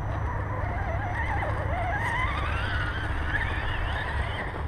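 Electric motor and gear whine of an Axial SCX10 Rubicon RC rock crawler under throttle, rising and wavering in pitch from about a second in as it climbs. A steady low rumble runs underneath.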